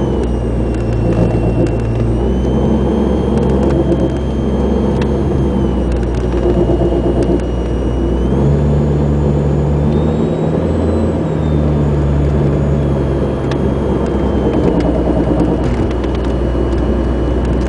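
Chevrolet Cavalier being driven, heard from inside the cabin: steady engine and road noise, with the engine note and a faint high whine rising in pitch about halfway through and dropping back a few seconds later.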